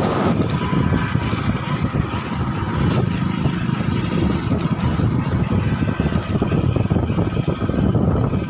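A moving vehicle's steady low rumble, with no clear engine tone or breaks.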